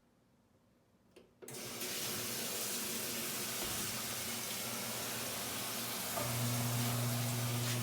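Washing machine running: a steady rush of water starts suddenly about a second and a half in, and near the end a steady low motor hum joins it.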